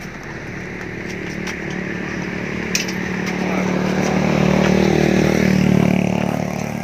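A motor vehicle's engine passing on the road, growing louder to a peak about five seconds in and then easing off. A couple of sharp clicks or knocks come before it.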